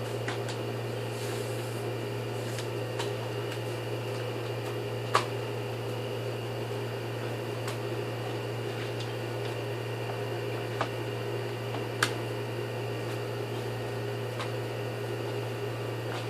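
Steady mechanical hum with a few sharp clicks and taps, about five, eleven and twelve seconds in.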